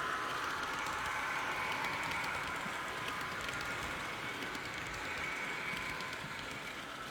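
HO-scale model train, a V 200 diesel model pulling a long rake of coaches, running along the layout track: a steady rolling whir with scattered light clicks from the wheels on the rails.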